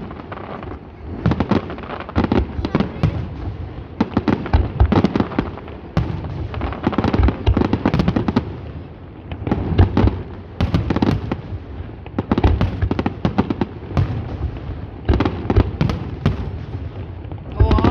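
Fireworks salute going off: volley after volley of sharp bangs and crackle, tightly bunched, each burst of shots following the last every second or two.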